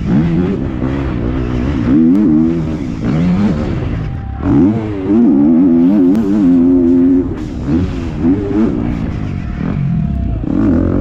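Motocross bike engine recorded on the bike under race throttle, revving up and falling back with gear changes and corners. It holds a high steady note for a stretch mid-way, and backs off briefly about four seconds in and again near the end.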